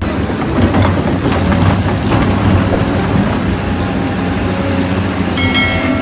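Large Caterpillar tracked hydraulic excavator at work: a heavy diesel engine running with dense machinery noise. A brief high whine comes in near the end.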